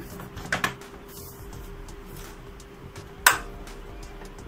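Background music, over which the plastic cover of a LIPI PB2 passbook printer is clicked into place on its side locks. There is a quick double click about half a second in and one sharp snap a little after three seconds.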